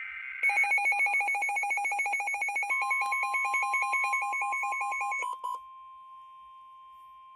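Emergency alert tones: a fast electronic warble flipping between a low and a high pitch several times a second, joined about a quarter of the way in by the steady single-pitch NOAA Weather Radio warning tone. After about five and a half seconds the warble cuts off and the steady tone carries on alone, much quieter. The tone announces an incoming weather warning.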